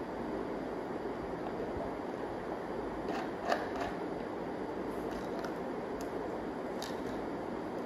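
Steady background noise of a room, with a few faint light clicks and a small knock about three and a half seconds in.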